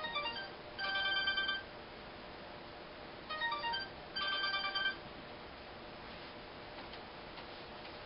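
Mobile phone ringtone playing a short electronic melody twice, about three seconds apart, then stopping about five seconds in.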